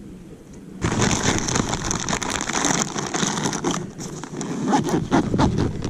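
Loud rustling and crackling starting about a second in: a jacket and gear rubbing against a chest-mounted camera as the gear is handled, with dry pine needles crunching.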